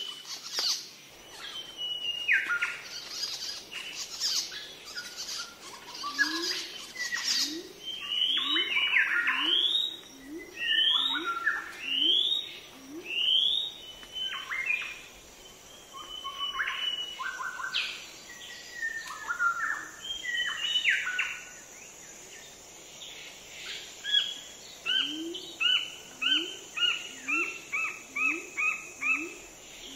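Several birds chirping and calling: quick rising whistled notes about once a second through the middle, then a fast series of short repeated notes near the end. A steady high-pitched hum joins about halfway through.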